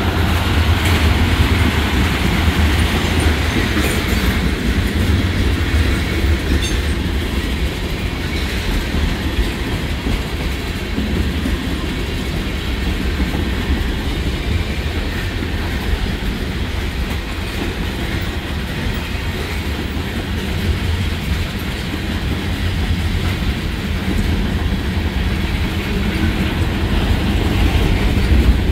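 Long freight train, mostly loaded tank cars, rolling past at close range: a steady, continuous noise of steel wheels running on the rails.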